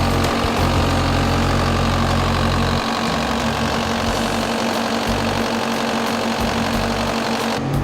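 An engine running steadily at a low, even speed, like a machine idling.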